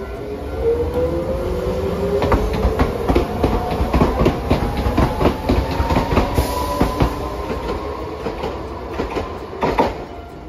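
Hiroden Green Mover low-floor tram pulling away: its traction motors whine steadily higher as it accelerates, while the wheels clack over rail joints. The clacks come thick through the middle, with a sharp burst near the end.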